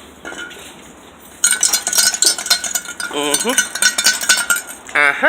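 Broken honeycomb catalyst pieces clinking and rattling from a failed catalytic converter. The rattle starts suddenly about one and a half seconds in and keeps going densely. The clogged, broken converter is what needs replacing.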